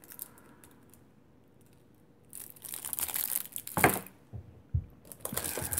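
Clear plastic packaging bag around a power adapter crinkling as it is handled, starting about two seconds in, with a sharp knock and a short low thump partway through.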